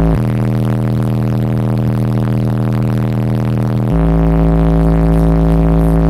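Four DC Audio Level 5 18-inch subwoofers, driven by Sundown Audio SCV 6000 amplifiers, playing loud sustained bass notes. A very deep held note steps up to a higher held note just after the start, then drops back to the deep note about four seconds in.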